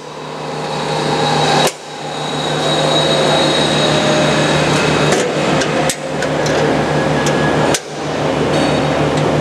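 Sheet-metal wheel cabinet doors of a large bandsaw being shut and latched: a bang about two seconds in and another near the end, with metal latch clicks in between, over a steady machine hum.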